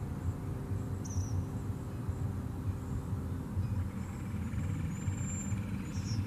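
Outdoor ambience: a steady low rumble with brief high bird chirps about a second in and near the end. A held chord of the background music fades out during the first half.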